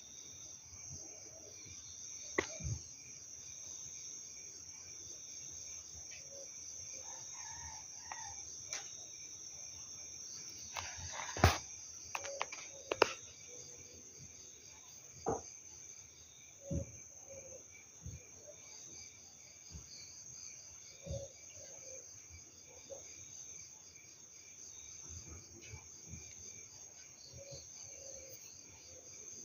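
Steady night chorus of crickets and other insects, several high pulsing trills at once, broken by a few sharp knocks or clicks, the loudest about eleven and a half seconds in.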